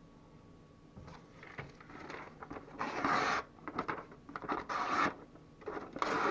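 Pocket knife blade scraping and slicing through something during a cut test: a run of rough scraping strokes starting about a second in, three louder ones about half a second long.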